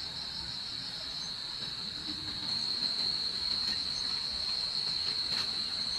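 Insects calling in a steady, high-pitched trill.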